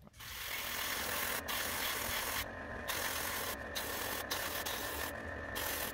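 Airbrush spraying paint in a steady hiss that breaks off briefly about five times, with a low hum underneath.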